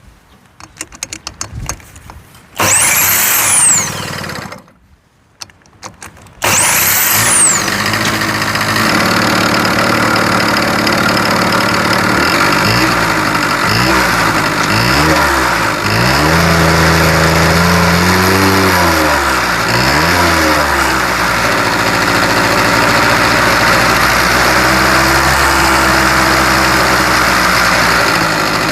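Honda Leader AF03 50 cc two-stroke scooter engine being cranked twice, about a second each time; it catches on the second try and keeps running. It is revved up and down several times, then settles into a steady idle.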